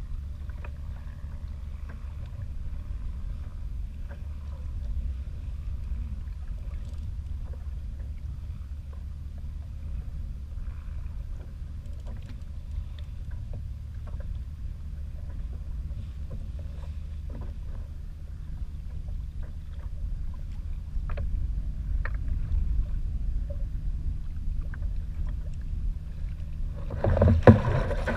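Low, steady rumble of wind and choppy water around a sit-on-top kayak at sea, with faint scattered ticks. A brief louder noise comes near the end.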